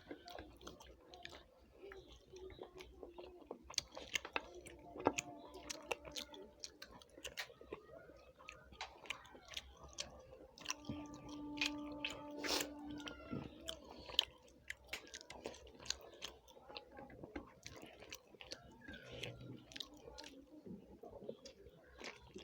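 Close-up chewing and mouth sounds of people eating rice and chicken curry: wet smacks and small clicks, again and again. A short steady tone sounds about halfway through.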